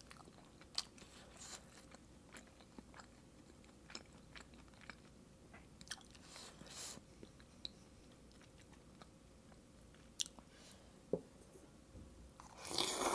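Close-miked chewing of a steamed dumpling, with small wet mouth clicks, then near the end a loud slurp of fire noodles lasting about a second.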